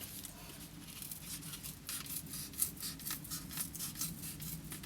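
Light rustling and small clicks from hands trimming and handling a sheet of paper-based board, with scissors cutting the edge.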